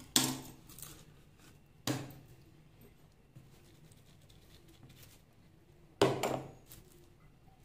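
A spatula knocks sharply against a bowl three times as whipped cream is scooped out, the second knock about two seconds after the first and the third some four seconds later. Faint handling noise fills the gaps.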